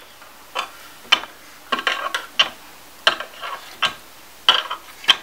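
A doll's feet tapping on a plastic toy staircase as it is walked up step by step: about eight sharp clicks, roughly one every half to three-quarters of a second.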